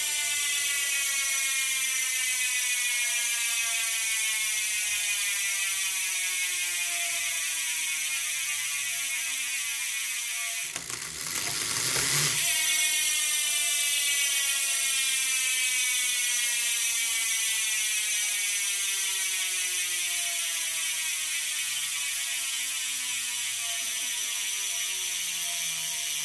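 SYTE bicycle hub's freehub pawls ratcheting in a loud, rapid buzz as the wheel freewheels, the 'angry hornet' sound of a loud-engagement hub. The clicking gradually slows as the wheel spins down, is briefly interrupted about eleven seconds in as the wheel is spun again, then races and slowly winds down once more.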